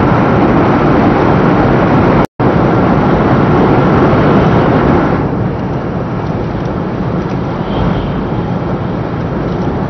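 Loud, steady running noise of a 500 series Shinkansen at speed, heard inside the passenger cabin while passing through a tunnel. The noise eases slightly and loses some of its top end about halfway, as the train comes out into the open. The sound cuts out for an instant a couple of seconds in.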